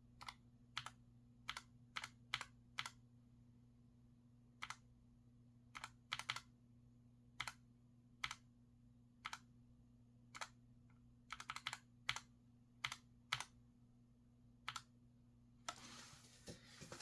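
Redragon K618 mechanical keyboard with brown switches: separate key presses, single clacks spaced a fraction of a second to a couple of seconds apart, now and then in quick runs of two to four.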